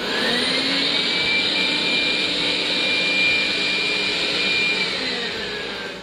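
Dreame Bot L10 Pro robot vacuum running on carpet, its suction fan whine rising in pitch over the first second as it boosts to higher suction power for carpet. The whine holds steady, then falls back in pitch near the end.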